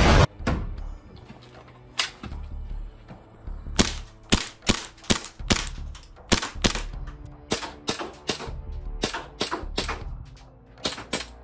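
Gas-powered Glock 17 airsoft pistol firing about twenty semi-automatic shots, each a sharp crack, in quick strings of two to four with short pauses between. A brief loud rush of noise comes at the very start.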